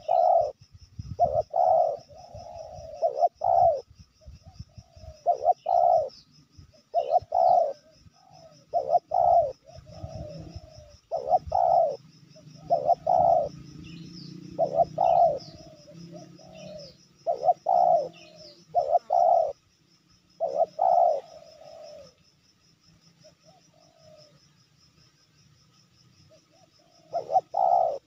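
Spotted dove cooing in repeated phrases of deep, hooting notes, falling quiet for a few seconds near the end before one more phrase.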